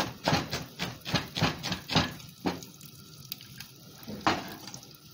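Chef's knife chopping onion on a plastic cutting board: quick knocks about four a second for the first two seconds, then a few scattered knocks.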